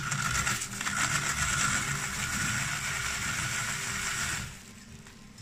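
Hand-cranked Saladmaster food processor shredding red cabbage through its cutting cone: a steady grinding whir that stops about four seconds in.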